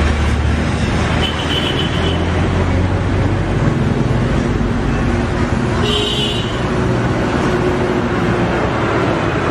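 Road traffic noise: a steady roar, with a vehicle's low engine rumble in the first few seconds.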